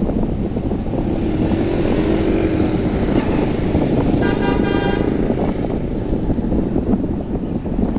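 Motorcycle street traffic: a steady low engine and road rumble, with a vehicle horn honking in a quick run of short beeps a little past the middle.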